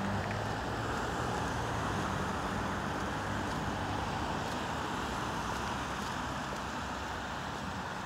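Road traffic on a wet road: a steady hiss of tyres on wet pavement, with a low engine hum that fades away about halfway through.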